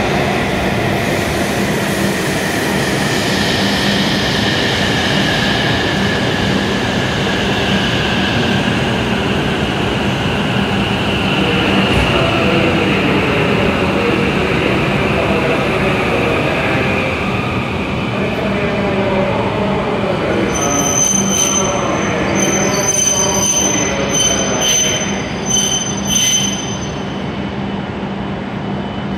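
E7-series Shinkansen train moving along the platform: steady rolling and running noise, with a high wheel squeal that slides slowly down in pitch. From about two-thirds of the way in, the sound thins out to a quieter squeal with a steady very high tone.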